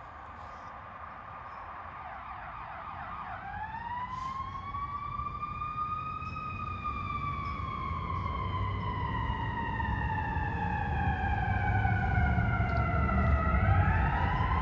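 Fire truck siren: a quick yelp about three seconds in, then a wail that rises, falls slowly and starts rising again near the end. The truck's engine rumbles underneath, and everything grows steadily louder as the truck approaches.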